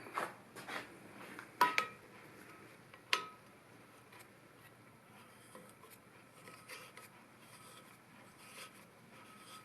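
Small metal tools being handled while fitting a Helicoil thread insert: four sharp clicks in the first few seconds, then faint scattered ticks and light scraping.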